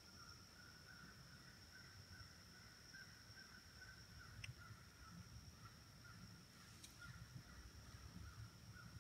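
Near silence: faint woodland ambience with a steady high-pitched whine and a faint wavering chirring, and two faint clicks, one about four and a half seconds in and one near seven seconds.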